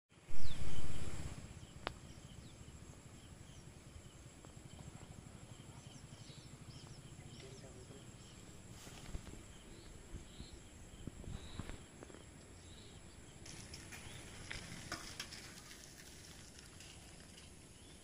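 Outdoor nature ambience: a steady high insect drone with scattered short bird chirps over a low rumble. A loud low blast hits the microphone in the first second.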